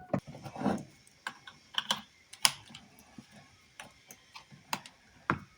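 Scattered light clicks and knocks of car door parts and tools being handled, about a dozen at irregular spacing.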